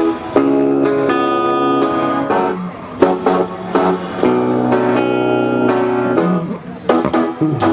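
Pop song's intro playing, led by strummed electric guitar chords with short breaks between phrases.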